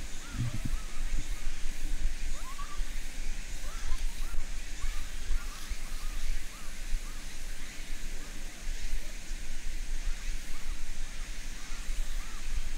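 Japanese macaques cooing: many short rise-and-fall calls, one every second or so, over a steady low rumble.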